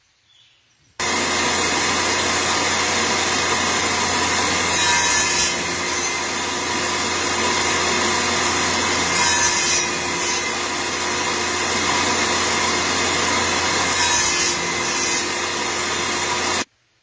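Table saw running and cutting into a cedar block, with three louder swells as the blade bites into the wood. It starts abruptly about a second in and cuts off abruptly near the end.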